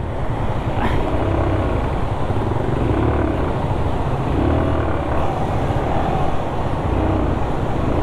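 Motorcycle engine running as the bike is ridden over a rough, rocky off-road track, its note rising and falling several times.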